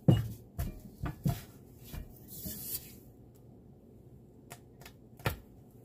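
A silicone spatula knocking and scraping against the sides of a cast-iron Dutch oven and the loaf as the baked bread is pried loose from the bottom of the pot. A string of short knocks and scrapes, the loudest about five seconds in.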